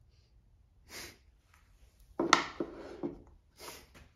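Hand tools and engine parts being handled: a short scrape about a second in, then a sharp clack a little after two seconds with a quick rattle of knocks after it, and another short scrape near the end.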